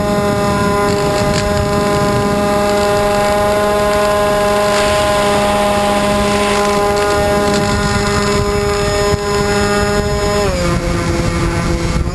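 Twin D2826-6 2200kv brushless motors with 6x4 propellers on a scratch-built FPV plane in flight, heard from the onboard camera: a steady whining drone over rushing air. Near the end the pitch drops as the throttle is eased, then rises back.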